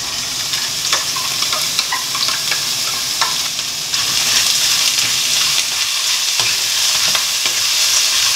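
Frozen mixed vegetables sizzling as they fry in hot coconut oil in a wok, stirred with a wooden spatula that adds light scattered knocks and scrapes. The sizzle grows a little louder about four seconds in.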